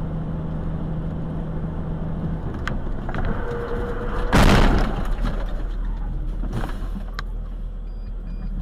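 Vehicle cabin drone of engine and road noise. About four and a half seconds in comes one loud, half-second bang as a dark SUV cutting in close appears to strike the vehicle.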